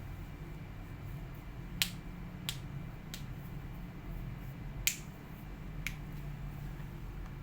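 Five sharp, separate plastic clicks from handling the laptop, the loudest about two and five seconds in, over a steady low hum.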